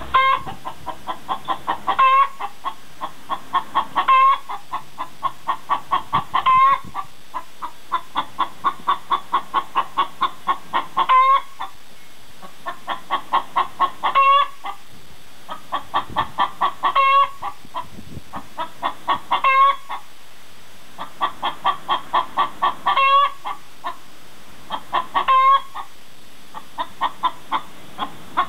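A hen cackling around laying an egg: runs of quick clucks, about four a second, each ending in a longer, louder squawk, repeated about ten times.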